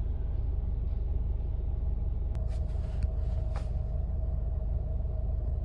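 Steady low mechanical rumble with a faint steady hum, and a few light clicks about two and a half to three and a half seconds in.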